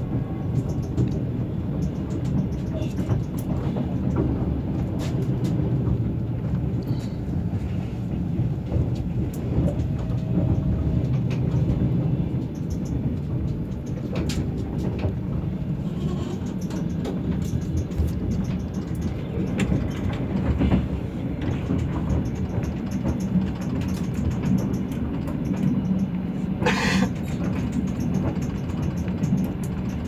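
Passenger train running along the track, heard from inside the carriage: a steady rumble of wheels on rails with scattered light clicks, and a short burst of rushing noise near the end.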